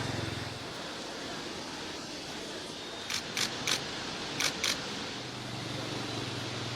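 Steady rushing noise of floodwater, with five short sharp clicks a little past the middle, three and then two in quick succession.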